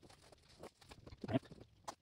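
Hands rubbing and patting headliner fabric down onto the glued headliner board: soft irregular rustling, with a heavier thump a little over a second in and a sharp tap just before the end.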